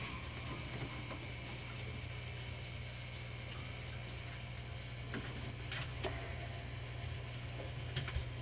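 Steady low hum with a faint watery hiss, and a few light clicks about five to six seconds in and again near the end.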